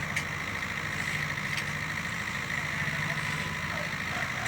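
Mini excavator's diesel engine running steadily at low revs, a low even hum with a faint high whine, and two light ticks about a second and a half apart.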